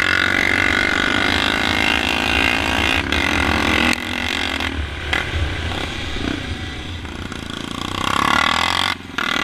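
Motocross bike engine heard from on board, running hard at high revs. About four seconds in the throttle closes and the engine note drops. It runs lower until it revs up again near the end, with a brief dip just before the end.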